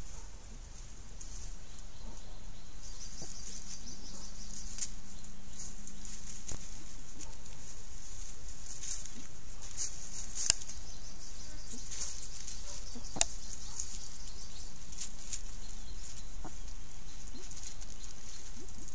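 Banded mongoose foraging in dry leaf litter: a few sharp clicks and scratches over a steady high-pitched hiss.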